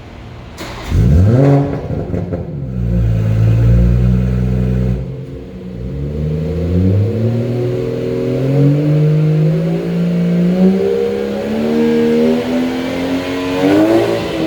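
BMW 540i's B58 turbocharged inline-six through a Dinan free-flow axle-back exhaust. A quick rev flare about a second in drops back to a steady low note, then the engine note climbs smoothly for several seconds as it revs up under acceleration, peaking near the end.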